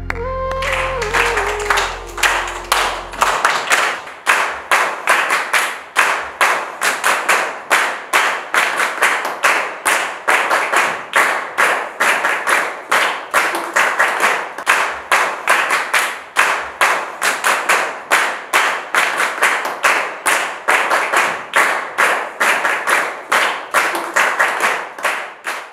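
A group of people clapping in time, a steady beat of about three claps a second that goes on without a break and stops just before the end. Over the first few seconds the last notes and low drone of background music fade out.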